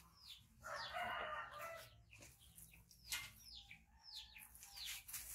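A rooster crows once, starting about a second in, over a run of short, high, falling bird chirps.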